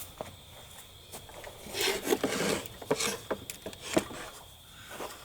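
Handling noise of wood and tools: rubbing and scraping with several sharp knocks, mostly between about two and four seconds in.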